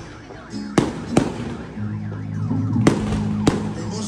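Fireworks display: four sharp bangs from aerial shells and comets, irregularly spaced. From about two seconds in, held low tones that step in pitch sound under them.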